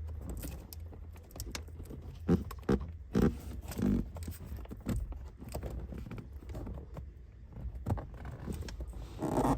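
Irregular knocks and taps of plastic trim and a small retaining clip being worked by hand onto a car's cabin filter housing, under a steady low hum.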